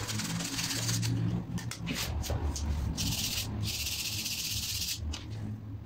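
Hand sanding a small wooden spatula with folded sandpaper: the paper rasps over the wood in back-and-forth strokes, the hiss breaking with each stroke at first and then running more steadily.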